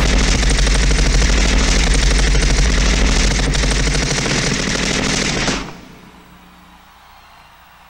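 Staged machine-gun fire sound effect: one long, rapid burst of shots that cuts off abruptly about five and a half seconds in.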